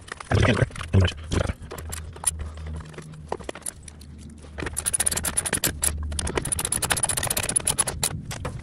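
A ratchet wrench with an 8 mm socket clicking rapidly as the screws holding an EVAP purge valve are tightened down, after a few knocks of handling in the first second or so.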